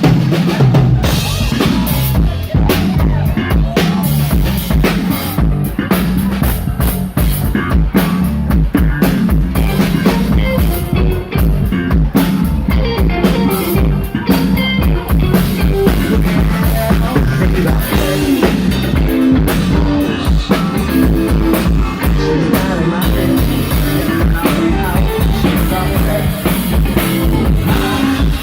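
Live rock band playing a song at full volume, a drum kit keeping a steady beat under bass and electric guitar.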